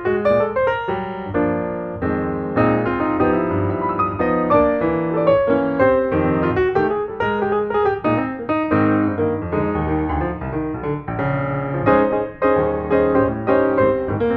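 Background piano music: a busy run of quick notes over chords.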